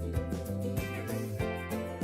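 Background music: plucked acoustic guitar with a bass line, a light, easy-going tune.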